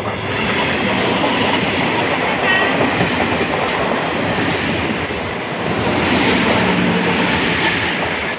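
Electric multiple-unit (EMU) suburban local train passing close at speed: a loud, steady rush and rumble of wheels and coaches on the rails, with a couple of sharp clicks in the first four seconds.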